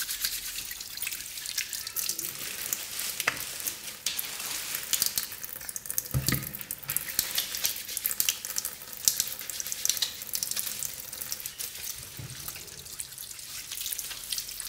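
Water running from a kitchen tap into a sink and splashing over hands being washed: a steady, crackly rush.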